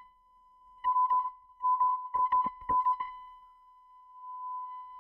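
Repaired 6-ohm Onkyo HT-S3900 speaker playing a 1 kHz test tone. From about one to three seconds in the tone breaks into loud scratchy, crackling bursts as the diaphragm is pushed and the voice coil binds against the magnet, then it carries on as a steady, quieter tone.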